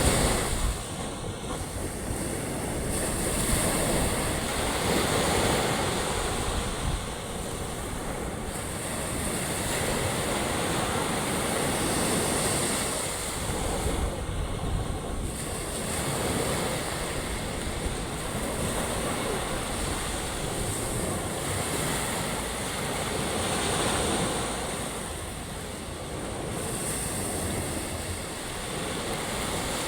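Ocean waves breaking and washing up on a beach: continuous surf that swells and ebbs every few seconds.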